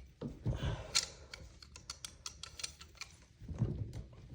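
Slip-joint pliers clicking and knocking against a dishwasher drain hose clamp as the connection is worked loose: a string of small, sharp irregular clicks.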